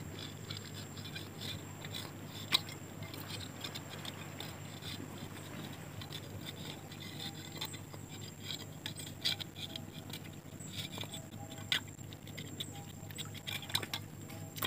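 Metal crab hook probing a crab hole in rock under shallow seawater: scattered small taps and scrapes, with a sharper knock about two and a half seconds in and a few more near the end.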